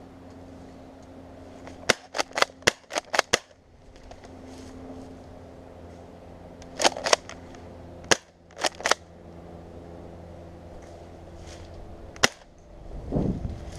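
Airsoft guns firing: a quick string of about seven sharp shots, then scattered single and paired shots. A duller thump follows near the end.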